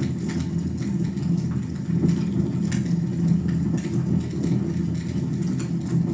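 Fire burning in a fireplace: a steady low rumble with scattered small crackles and pops.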